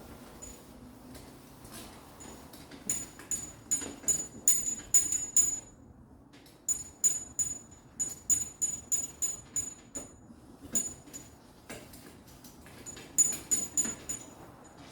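Rag wiping a car hood down with alcohol in quick back-and-forth strokes: runs of short, sharp, hissy swipes, about two to three a second, with brief pauses between runs.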